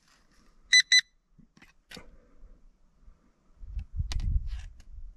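Handheld pinpointer metal detector beeping twice in quick succession, two short high electronic tones under a second in. Faint rustling follows, with a low rumble about four seconds in.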